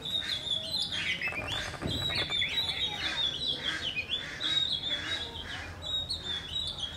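Small birds chirping and calling over and over, short high notes and quick falling phrases, with a brief low thump about two seconds in.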